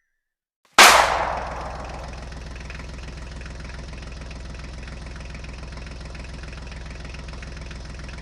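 Tractor engine starting with a sudden loud burst about a second in, then idling steadily and evenly.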